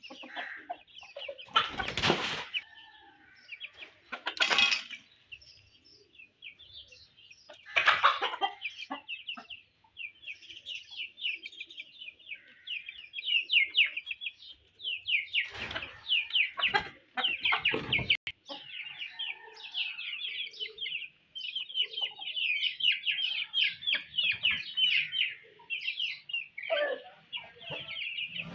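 Aseel chickens clucking over a constant high, rapid chirping chatter, broken by a few short loud rustling bursts.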